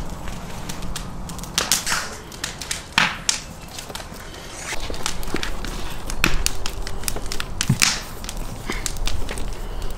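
Irregular scrapes, rustles and clicks of a knife and steel wire being worked on a whole raw lamb carcass on a wooden board.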